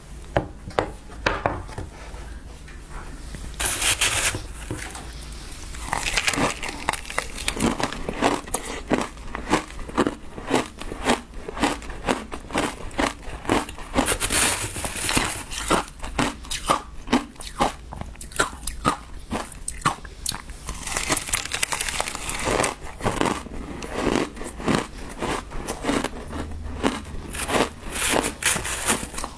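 Close-miked eating of shaved ice topped with passion fruit: a steady run of crisp crunches and chewing clicks, with a few longer crunchy scrapes as a spoon digs into the ice.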